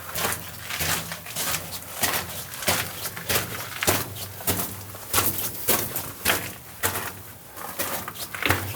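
Footsteps crunching on loose rock and gravel on a mine tunnel floor, a short sharp scuff with each step at an uneven walking pace.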